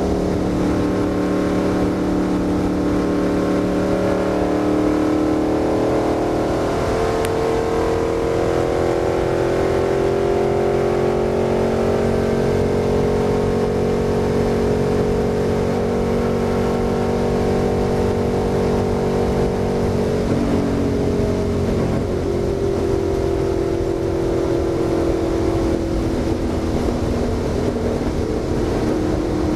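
Stock car's V8 engine heard from inside the cockpit at speed, under steady road and wind noise. It climbs in pitch through the first half as the car accelerates down the straight, holds, drops about two-thirds of the way in as the driver eases off for the turn, then picks up again near the end.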